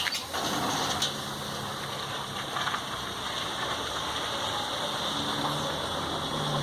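Shower running: a steady rush of water, with a click near the start and another about a second in.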